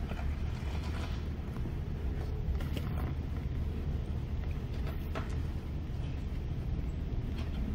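Car stopped in traffic: a low, steady rumble heard inside the cabin, with a few faint clicks.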